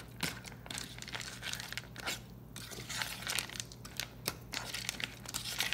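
A fork stirring and chopping scrambled eggs into dry kibble in a stainless steel dog bowl: irregular clicks and scrapes of the fork on the metal and on the kibble.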